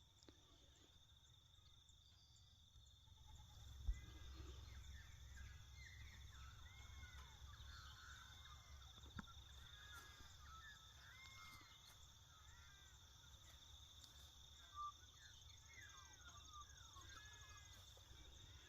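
Faint rural outdoor ambience: small birds chirping and twittering in the background over a steady high-pitched whine and a low rumble, with one soft knock about four seconds in.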